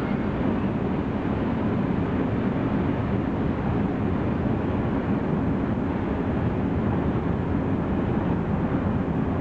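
Freight train of covered wagons rolling steadily through a station, the steady noise of its wheels running on the rails.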